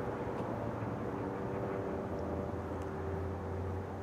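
Norfolk Southern double-stack intermodal train's cars rolling along the track, a steady low rumble of wheels on rail with a faint steady hum above it.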